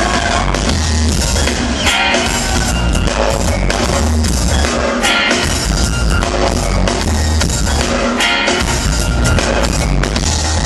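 Live band playing loud through the PA: drum kit, electric guitar and heavy bass with a steady beat.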